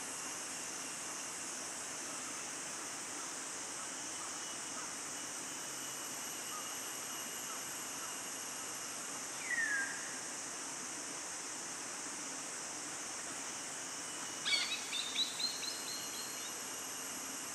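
Forest ambience: a steady high hiss of insects, with one short falling bird whistle a little past halfway and a quick run of sharp bird chirps near the end.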